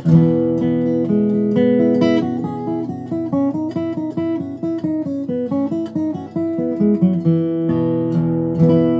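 Martin D-18 dreadnought acoustic guitar with phosphor-bronze strings, flatpicked with a fast run of single melody notes in an Irish jig. Near the end a full chord is struck and left ringing.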